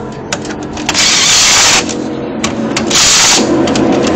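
Handheld cordless power tool driving the lug nuts on a race car's wheel, in two loud bursts: a short one about a second in and a longer one starting about three seconds in, with a few clicks between them.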